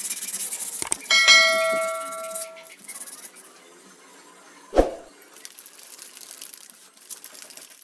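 Brass oil lamp parts ringing: about a second in, the brass is struck and rings like a bell with several clear tones, fading over about a second and a half. Before it, rubbing on the brass; near five seconds, a single sharp knock.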